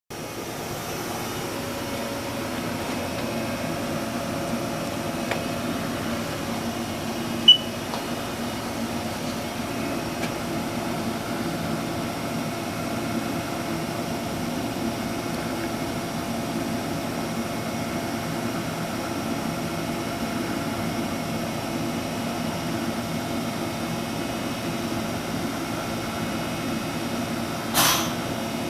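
Steady mechanical hum of a running CNC vertical machining center, with several steady tones in it. A short high beep sounds about seven and a half seconds in, and a brief clatter comes near the end.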